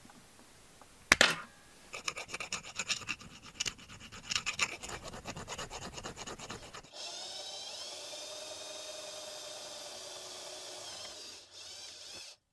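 Tin snips cut the edge of a thin metal lure blade with one sharp snap about a second in. A hand file then scrapes back and forth across the blade in rapid strokes. From about seven seconds an electric drill runs steadily, drilling a hole through the blade, and stops just before the end.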